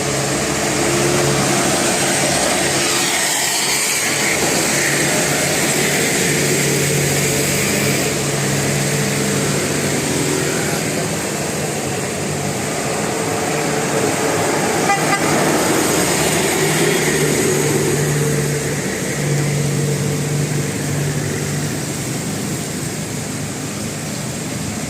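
Bus telolet horns, the multi-tone musical air horns of Indonesian buses, sounding in held notes that start and stop, over bus engines and traffic noise.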